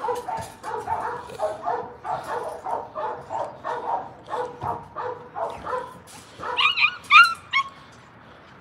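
Puppies yipping and whining in quick short calls, about three a second. Near the end they rise into a few higher, longer whines.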